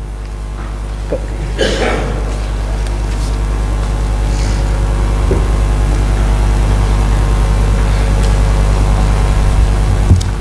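Low, steady rumble in the assembly chamber, growing gradually louder, with a brief louder burst about two seconds in.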